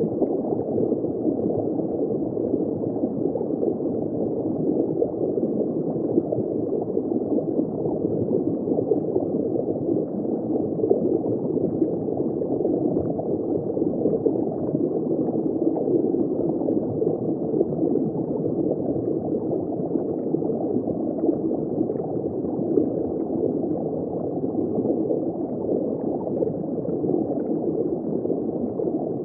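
Underwater bubbling ambience heard from just below the surface: a steady, dense, muffled bubbling and gurgling with no high frequencies.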